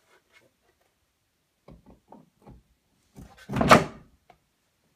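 Skateboard complete being hung on a wall-mounted hanger: a few light knocks, then a louder clatter lasting about half a second as the truck slides onto the hanger's threaded posts and the board settles against the wall.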